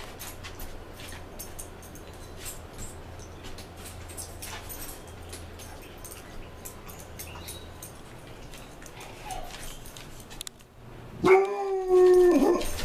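A dog gives one loud, held whine about a second long near the end, steady in pitch and dropping as it ends. Before it there are only faint ticks and rustling.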